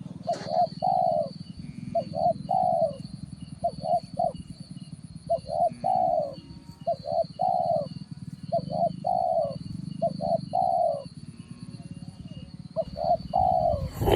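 A dove cooing over and over, about eight phrases of two short coos and a longer falling coo, spaced roughly a second and a half apart, with a pause near the end. Under it run a steady low hum, a thin high steady whine and faint, regular small chirps.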